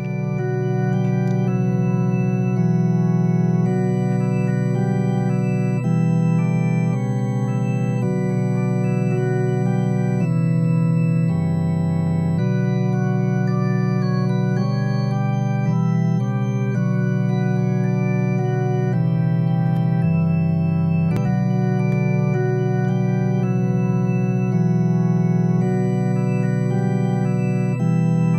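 Organ music playing slow, sustained chords that change every second or two, with a deeper bass note sounding twice.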